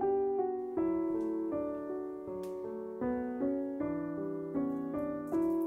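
Background piano music, single notes and chords struck one after another, a new note about every half second.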